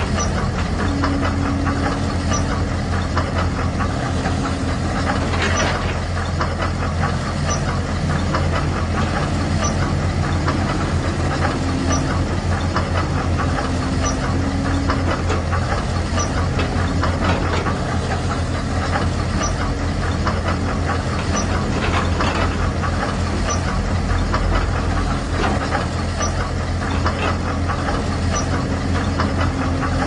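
Radio-controlled CAT toy bulldozer running steadily as it crawls over dirt, a continuous low hum with a dense mechanical rattle over it.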